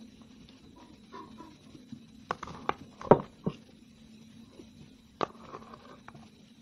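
Close-up eating sounds: chewing and wet mouth smacks with a few sharp clicks, the loudest about three seconds in and another a little after five seconds, over a faint steady hum.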